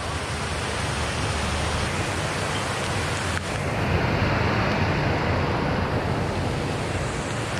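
Steady rushing of a muddy, rain-swollen stream pouring over a low concrete weir.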